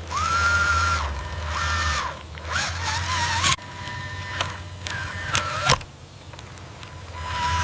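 Small electric motors of RC construction machines whining in short runs, the pitch rising, holding and falling, with the sound cutting off abruptly several times.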